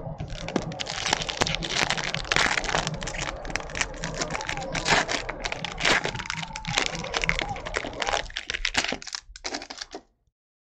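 Foil wrapper of a Bowman Chrome baseball card pack being torn open and crinkled by hand: a dense run of crackles that dies away near the end.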